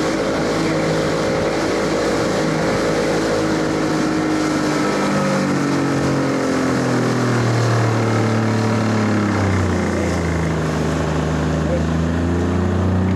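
Evinrude outboard motor running with the boat under way, over the rush of wind and wake. About five seconds in, its pitch sinks gradually for several seconds, then holds steady at a lower note.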